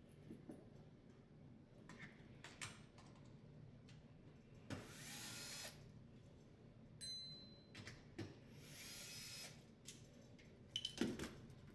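Cordless electric screwdriver running in two short bursts of about a second each, backing screws out of a dishwasher's sheet-metal front panel, with clicks and knocks of handling the panel, loudest near the end.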